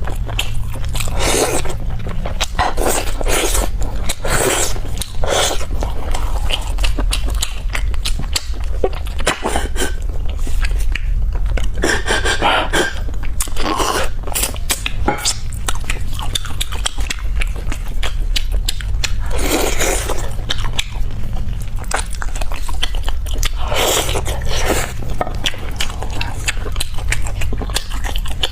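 Close-miked eating: a person biting and chewing meat off pork leg bones, with irregular wet smacks and chewing clicks.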